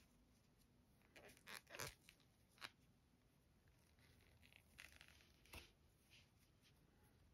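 Near silence with faint rustling and soft clicks of yarn being worked with a crochet hook, in small clusters about a second in and again about five seconds in.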